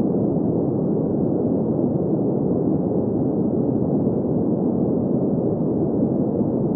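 Steady, unbroken sleep-aid noise, deep and muffled like a low rush, with nothing bright or hissy in it.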